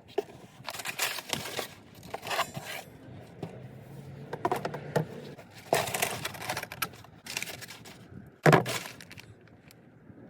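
Handling noises: irregular rustling, scraping and clattering of objects being moved, with one sharp loud knock about eight seconds in.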